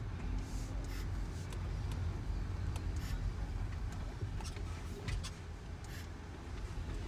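Car rumble heard from inside the cabin while driving slowly: a steady low engine-and-tyre drone, with a few faint ticks.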